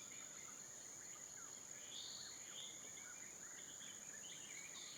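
Faint forest ambience: a steady high-pitched insect drone, with faint wavering bird calls in the middle.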